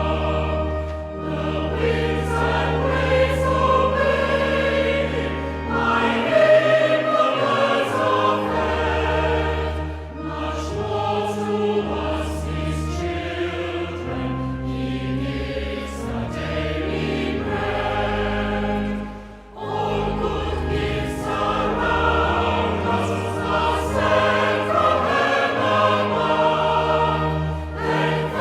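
A choir singing a hymn over sustained low bass accompaniment, in phrases with brief pauses about ten and nineteen seconds in.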